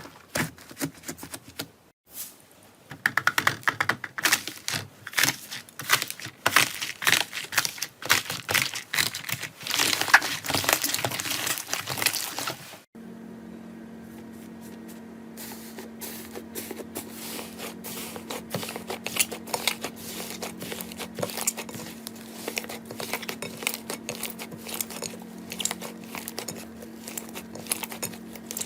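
Slime being squeezed and worked by hand, making dense crackling and popping clicks. About thirteen seconds in it cuts to softer, sparser clicking over a steady hum.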